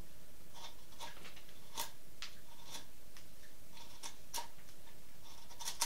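A carving knife paring a pine duck decoy's bill by hand: a series of short, crisp shaving cuts, irregularly spaced at roughly two a second.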